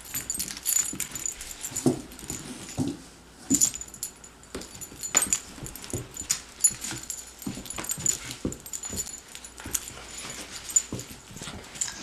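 A puppy playing rough, with small dog noises, scuffling, and frequent light metallic jingles and clicks.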